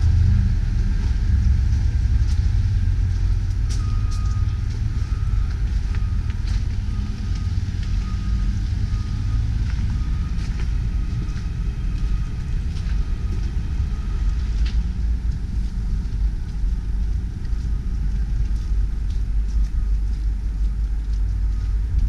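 Hitachi ZX530LC excavator's diesel engine idling, a steady low rumble that is loudest at first and slowly grows weaker, with a few light clicks.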